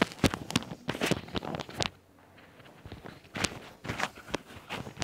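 Irregular sharp clicks and knocks of someone moving about and handling things, dense in the first two seconds, a short lull, then a few more.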